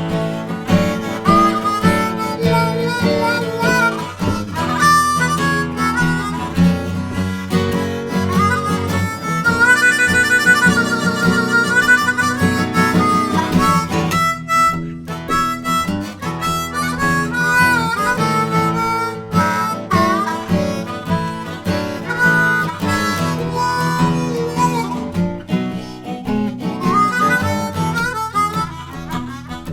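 Harmonica solo over strummed acoustic guitar, an instrumental break in a blues-folk song, with a warbling trill on the harmonica about ten seconds in.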